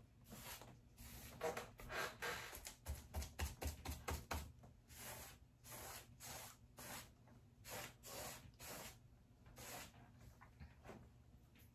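Paintbrush swishing back and forth over painted wood in quick, uneven strokes, about two a second with a faster run of them in the middle.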